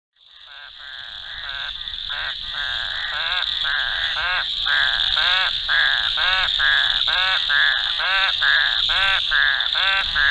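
Frogs calling in a chorus: a steady high trill under repeated croaks, about two a second, fading in over the first two seconds.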